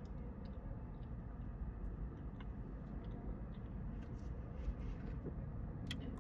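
Steady low background rumble with scattered faint clicks and ticks, and one sharper click near the end.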